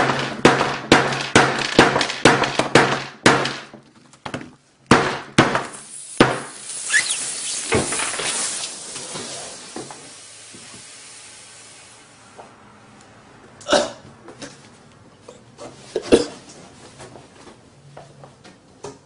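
Sledgehammer smashing a Samsung Galaxy S5 phone, about a dozen hard blows in quick succession over the first six seconds. The crushed lithium-ion battery then hisses as it vents smoke, fading out over several seconds. A couple of single knocks come later.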